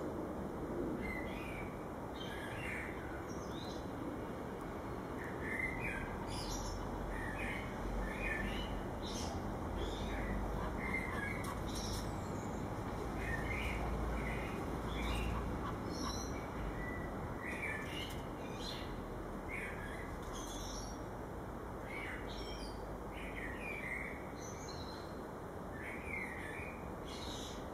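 Common blackbird singing: short fluty phrases, each ending in a higher twitter, repeated every second or two over a steady background hum.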